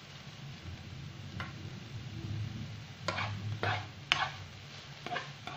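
A spoon stirring chopped green peppers in a nonstick frying pan, with about six short clacks and scrapes of the spoon against the pan, most of them in the second half.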